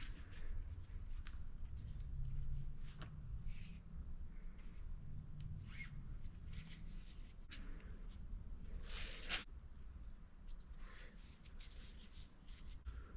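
Handling noise: scattered rustles, scrapes and light clicks over a low rumble, the largest scrape about nine seconds in.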